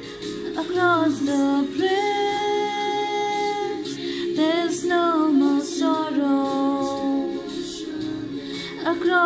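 A woman singing a slow prayer song with backing music, holding long notes and sliding between them.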